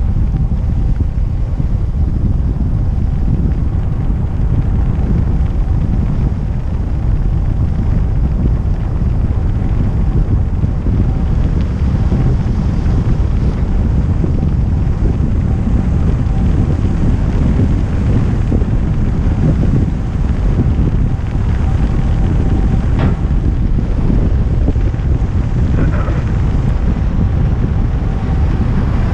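Heavy wind buffeting the microphone of a camera on a kick scooter speeding downhill on an asphalt road: a steady low rushing rumble, with a faint steady high tone above it.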